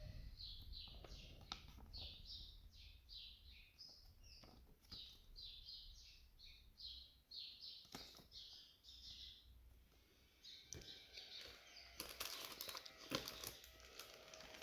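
Faint bird chirping: a long run of quick, repeated high notes that stops about nine seconds in, with a few scattered light clicks and rustles.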